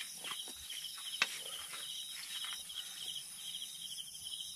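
Crickets chirping in a steady, evenly pulsing trill, with a few light clicks and scrapes of a wooden utensil against a wok as food is pushed out of it; one sharper knock about a second in.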